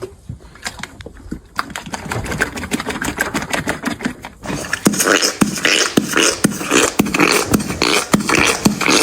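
Horse making rapid smacking, clicking noises with its lips and mouth, sparse at first and then faster and louder from about halfway through.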